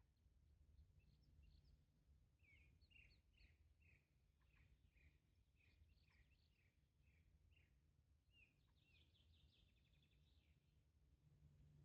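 Faint birdsong: a run of short chirps repeated about twice a second, then a quicker, higher trill near the end, over a low steady rumble.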